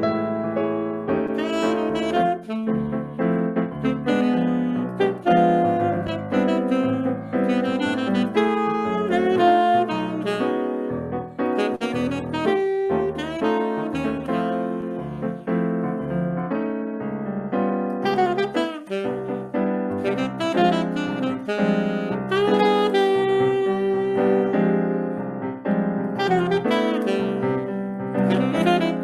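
Saxophone playing a quick, busy melody over piano accompaniment: live Brazilian instrumental music.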